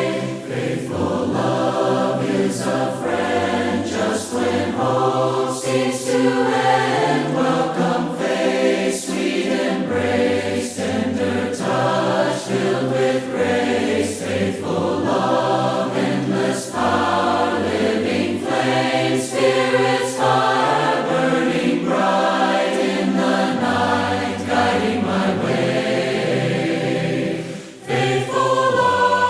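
A cappella choir singing a hymn in several-part harmony, with held chords that change every second or two and a short break between phrases near the end.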